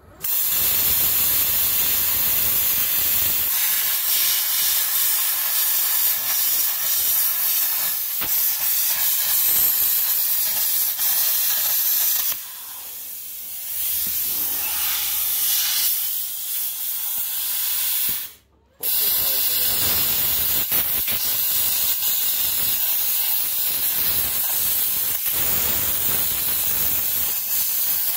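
Plasma cutter cutting steel bar: a loud, steady hiss of the air-plasma arc. It drops to a quieter stretch for about six seconds midway, goes briefly silent, then the cutting hiss resumes.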